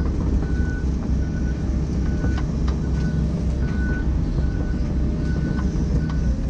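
John Deere excavator's diesel engine running steadily as the machine tracks, with a short high travel-alarm beep repeating about once a second and a few clanks.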